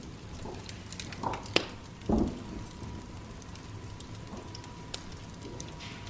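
Oak logs burning in a wood fire, crackling with scattered sharp pops, the loudest about a second and a half in. A low thump comes about two seconds in.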